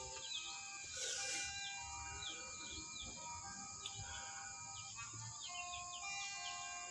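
Background music, a melody of short held notes, with quick falling bird-like chirps repeating throughout.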